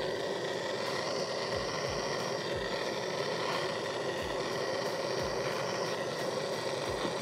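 Steady hissing roar of a small handheld gas torch, starting abruptly and burning evenly, used to heat and melt plastic to seal a crack in a stock tank.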